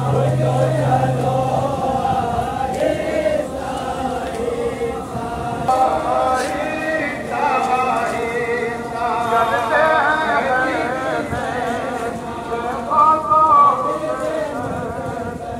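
A large crowd of men chanting together in unison, a Muharram mourning chant, loud and continuous with rising and falling lines.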